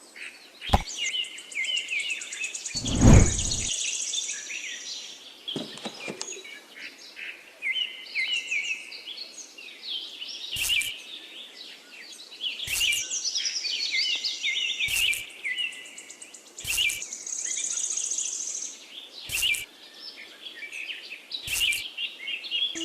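Birds chirping and trilling in a steady chorus, with a heavy thump about three seconds in and short knocks roughly every two seconds in the second half.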